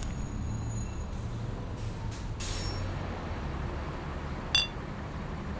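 Steady low rumble of a vehicle in motion, with one brief high squeak about four and a half seconds in.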